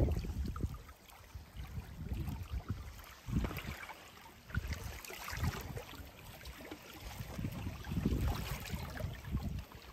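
Small fjord waves lapping and splashing against shoreline rocks, with a few louder splashes about a third, halfway and most of the way through, over gusts of wind buffeting the microphone.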